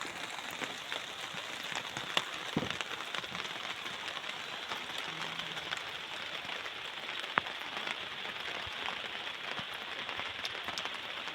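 Steady rain falling, an even hiss throughout with a few scattered sharper drop ticks.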